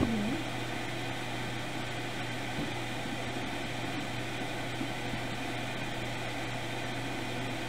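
Steady background hiss with a constant low electrical hum: room tone.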